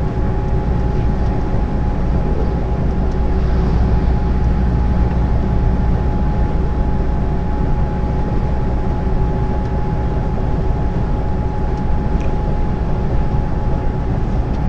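Lorry cab at motorway cruising speed, heard from inside: a steady, loud drone of diesel engine and tyre/road noise, with a thin steady tone running through it.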